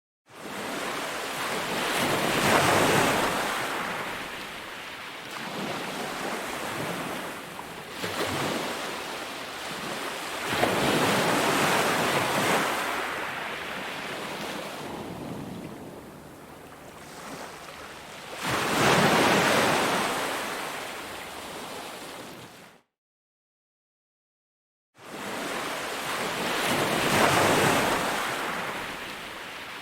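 Ocean surf on a beach: waves breaking and washing in, swelling and falling back about every eight seconds. Past the middle the sound cuts out completely for about two seconds, then returns.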